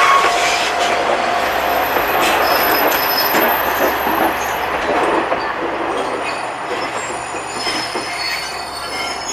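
KiHa 120 diesel railcar running past, a dense rumble of wheels on rail with thin, high wheel squeal ringing over it.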